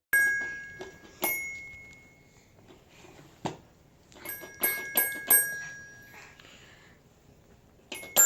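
A child's toy sounding bright, chime-like ringing notes one after another, each dying away slowly: one at the start, one about a second later, then a quick run of four about four seconds in. A single sharp knock comes about three and a half seconds in.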